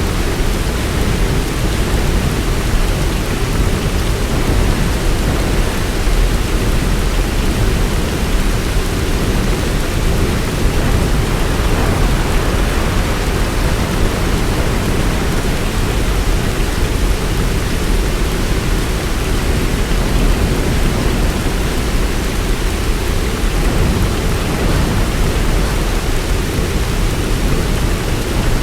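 Heavy rain falling steadily: a dense, even hiss with a strong low rumble underneath and no separate claps or drops standing out.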